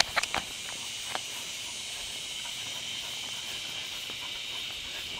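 Steady high-pitched hiss of outdoor background noise, with a few light clicks in the first second.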